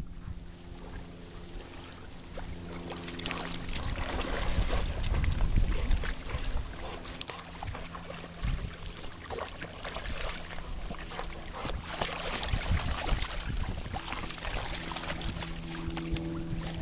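Water splashing and sloshing as Labrador puppies paddle and an adult Labrador wades through shallow water.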